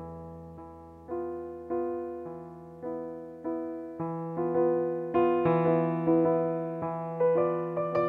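Digital piano playing in a piano voice: notes struck one after another, each ringing and fading, over a held low bass note. The playing grows louder and busier about halfway through.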